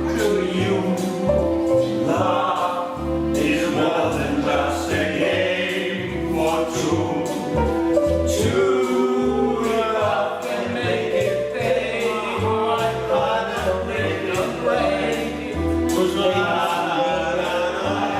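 Music playing: a song with a choir of voices singing over a steady bass line.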